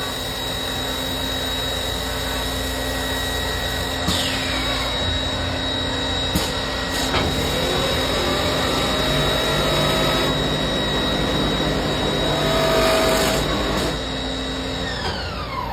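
CNC wood router spindle running with a steady high whine over machine noise, then winding down near the end, its pitch falling away.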